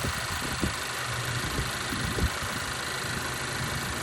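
Honda CR-V engine idling steadily with the air conditioning switched on high, a constant hum and hiss. A few faint knocks sound over it.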